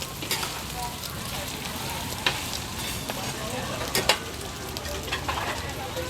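Bột chiên (rice-flour cake pieces) sizzling steadily as it fries in oil in a large pan, with about five sharp clicks as it is stirred.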